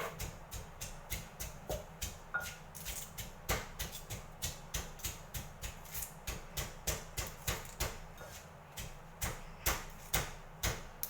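Knife chopping on a cutting board in a steady rhythm of about three to four knocks a second.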